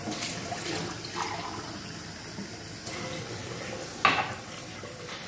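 Kitchen tap running steadily into a stainless steel sink as a drinking glass is filled. About four seconds in, a sharp knock as the glass is set down on the countertop.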